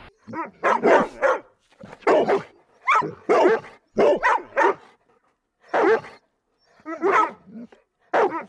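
A dog barking over and over, in quick runs of two or three barks with short pauses between them.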